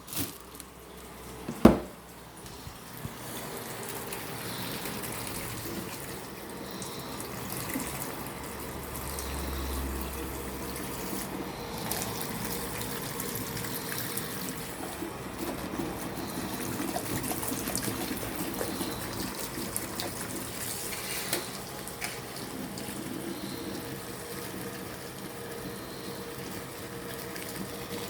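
Water running from a tap into a sink, a steady rush that sets in about three seconds in. It comes after a single sharp knock about two seconds in.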